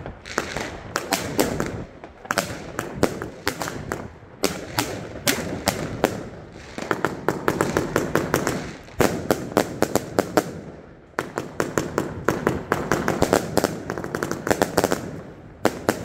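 A 100-shot 25 mm compound firework cake firing: volleys of launch thumps and sharp bursting cracks in quick succession, with short lulls between the clusters.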